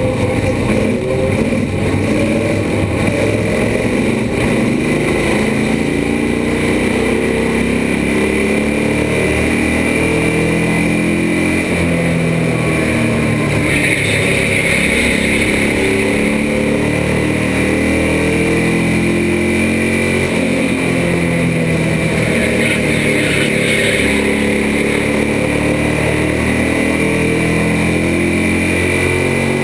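Bandolero race car's small single-cylinder engine running at racing speed, heard from inside the cockpit, its pitch rising and falling over and over as the car works through the laps, with wind rushing past.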